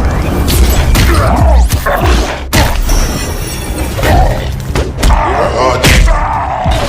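Staged fight sound effects over background music: several sudden hits and crashes with voice-like grunting effects between them.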